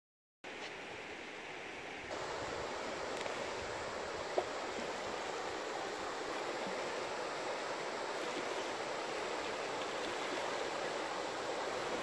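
River water rushing past an inflatable raft as it runs over a shallow riffle: a steady rush that starts about half a second in and gets louder about two seconds in, with a single short click a little after four seconds.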